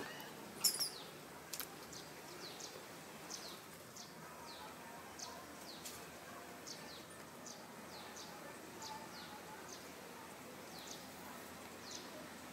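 Outdoor ambience with a small bird repeating short, high, falling chirps about once a second. There are two sharp clicks about a second in.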